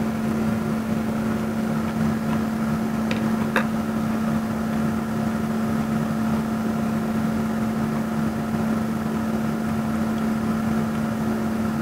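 Steady mechanical hum of a small machine, such as a fan, running at a constant pitch with a strong low tone. Two faint clicks come a little after three seconds in.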